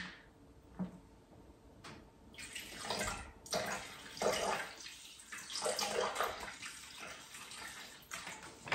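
Sparkling mineral water poured from a plastic bottle into a Thermomix mixing bowl. The pour starts about two seconds in and splashes in uneven surges.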